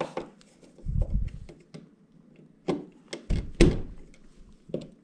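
A handful of dull thumps and sharp clicks from hands fitting a new wall light switch into its electrical box. The heaviest thumps come about a second in and again a little past three seconds.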